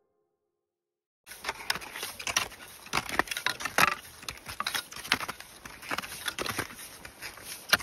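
Irregular crunching and scuffing in snow, starting about a second in after a brief silence.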